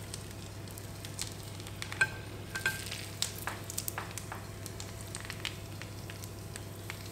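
Hot brown butter with crisp sage leaves and garlic poured from a frying pan over freshly roasted pumpkin, sizzling steadily with scattered sharp crackles, most of them in the middle of the pour.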